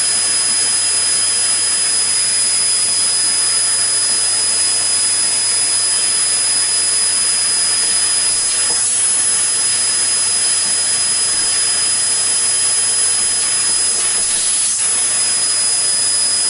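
A high-speed electric motor running steadily at one speed, a loud rushing noise with a constant high-pitched whine.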